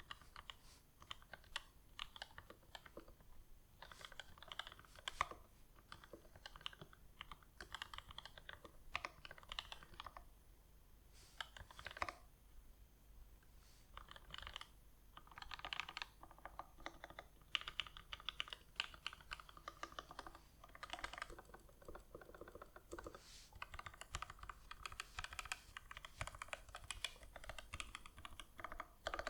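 Typing on a Grid 650 custom mechanical keyboard with Tealio V2 linear switches, the switches lubed with Krytox 205g0 and the springs with Super Lube. Key strikes come in quick irregular runs of clicks, with a couple of brief pauses.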